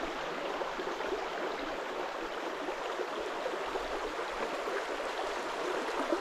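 A stream of running water flowing steadily, an even rushing and gurgling.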